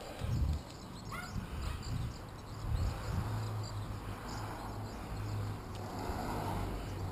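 Wind buffeting the microphone of a camera riding on a moving bicycle, an uneven low rumble that swells and dips, with faint road noise from the rolling bike.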